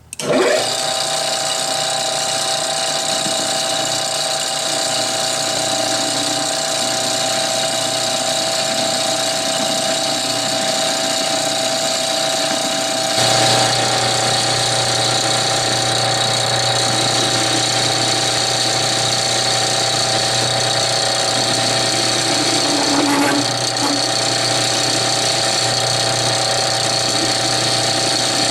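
Metal lathe running steadily with several steady tones while a piece of pipe is faced off to length. A lower hum joins about thirteen seconds in.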